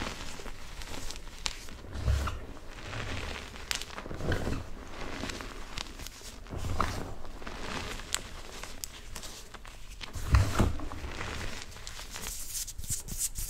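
Hands squeezing and crushing crunchy, powdery BSN Plain Jane gym chalk in a bowl: irregular soft crunching and crackling, with a few muffled thumps as the hands press into the pile, the loudest about ten seconds in. A denser crackle comes near the end.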